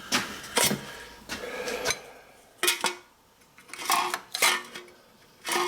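Metallic clanks and rattles, about seven sharp knocks at uneven spacing, some ringing briefly, as the can crusher's can gate mechanism and cans are worked by hand.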